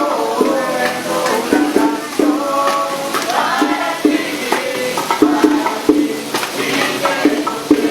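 A song: a voice singing a melody over steady, rhythmic percussion.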